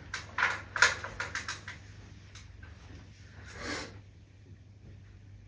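Handling noise of a person settling in at a studio microphone: a quick run of small clicks and knocks with rustling, loudest about a second in, then a short rushing sound of breath or movement at about three and a half seconds. Faint room tone follows.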